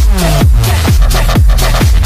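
Electronic dance music soundtrack, with a fast kick-drum beat of about four hits a second over a deep bass.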